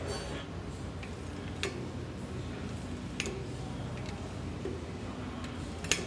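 A few sharp metallic clicks, about a second and a half apart, as a SRAM XG-1299 Eagle cassette is worked by hand and with a cassette tool onto a rear wheel's driver body, over a faint steady hum.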